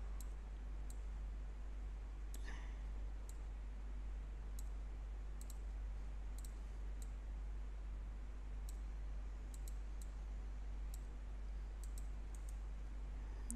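Light, irregular clicks of a computer mouse, many of them scattered throughout, over steady room hiss and a low hum.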